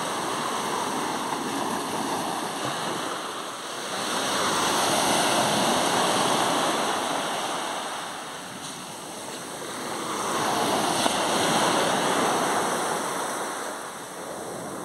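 Small sea waves breaking and washing up a pebbly beach. The surf swells and falls away twice.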